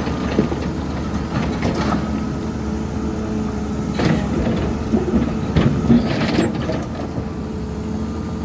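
Hydraulic excavator's diesel engine running steadily, with a cluster of knocks and scrapes from about four to six and a half seconds in as the bucket works through rock and muck.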